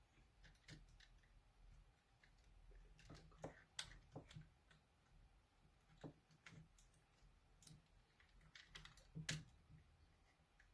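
Faint, irregular clicks and taps of small parts being handled and fitted by hand while reassembling a remote-control truck's drivetrain. The sharpest taps come about four and nine seconds in.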